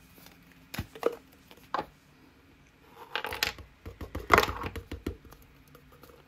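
A toy crayon container being opened and handled by hand: scattered sharp clicks and crinkling rustles, bunched about three seconds in and again just past four seconds.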